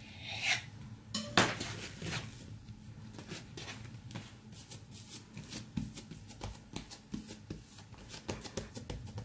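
Knife cutting through soft yeast dough against a countertop, then hands lifting, shaping and pressing the dough flat on the counter: a run of short taps and slaps, loudest a little over a second in.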